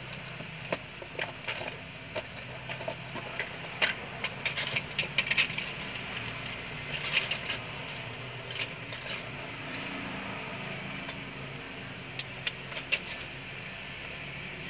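Scattered clicks and rustles from handling a paper-wrapped parcel on a counter, coming in small clusters, over a steady low hum.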